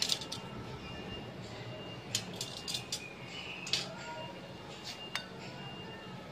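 Tuna jaws grilling over hot charcoal: scattered sharp crackles and pops, about nine in all, over a steady low hum.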